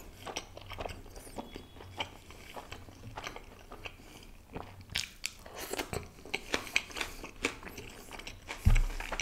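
Close-miked chewing, then crisp crunching of a piece of raw red onion, a quick run of sharp crunches from about five seconds in.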